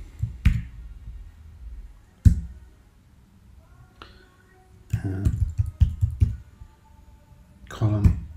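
Computer keyboard typing: a few separate keystrokes, then a quick run of several presses about five seconds in.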